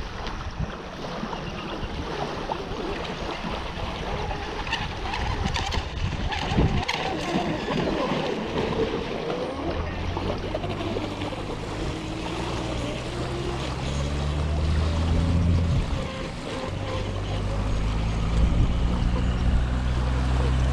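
Small waves lapping a gravel shore, with a radio-controlled model boat running out on the lake. About halfway through, a low steady rumble of wind on the microphone sets in and becomes the loudest sound.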